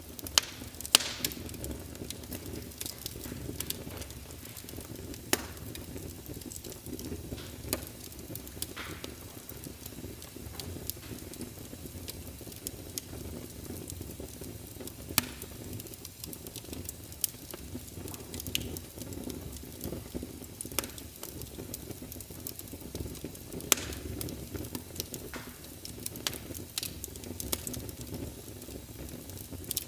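Wood fire in a fireplace crackling, with irregular sharp pops over a steady low hiss; the loudest pops come about a second in and again at around 5, 15 and 24 seconds.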